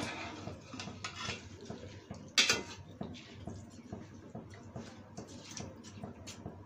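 Long metal spoon stirring wet rice and meat in a large aluminium biryani pot, scraping and clinking against the pot's sides, with one louder clank about two and a half seconds in.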